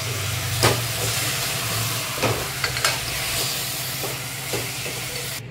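Mutton pieces sizzling as they are sautéed in masala in an aluminium pressure cooker. A steel ladle stirs them and knocks against the pot a few times, over a low steady hum.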